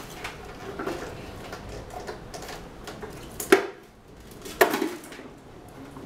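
Hard plastic heater casing being pulled apart and shifted on a table: irregular knocks and clatter, with two louder knocks about a second apart past the middle.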